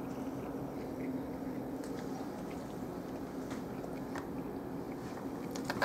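A person chewing a bite of pizza, with a few faint, scattered mouth clicks over a steady low hum.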